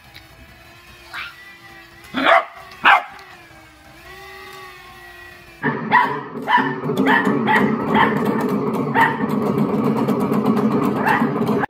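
A dog barks: a short fainter bark, then two loud ones about two and a half seconds in. After that, a dog's paws press the keys of an electronic keyboard, setting off dense clusters of notes roughly every half second.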